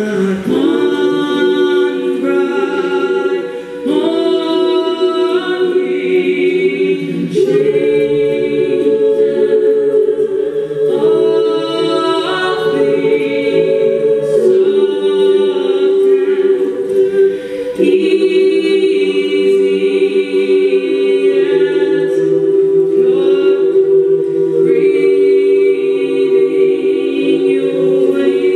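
All-female a cappella group singing amplified through microphones: a solo voice carries the melody over sustained close-harmony backing chords.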